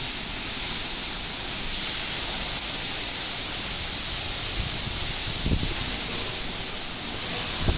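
Heavy rain falling steadily, an even hiss strongest in the high range. A couple of brief low thumps come through about five and a half seconds in and again near the end.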